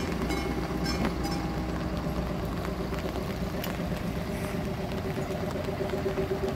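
Level-crossing mechanical bells ringing steadily while a ČD M 152.0 diesel railcar rolls over the crossing and away, its wheels clicking over the rail joints in the first second or so.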